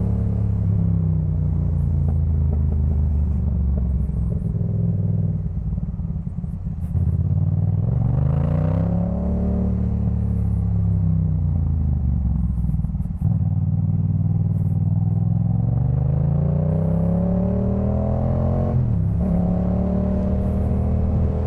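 Yamaha MT-07's parallel-twin engine through a Jeskap K4 full aftermarket exhaust, under way: the revs climb and drop with the throttle several times, and there is a quick break in the note about two-thirds of the way in and again near the end as gears are changed.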